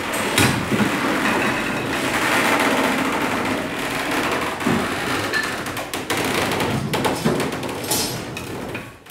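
Steamed Douglas fir and the wooden bending jig creaking and crackling under strain as the long lever arm is pushed round the form, a steady rough noise broken by many sharp clicks and knocks.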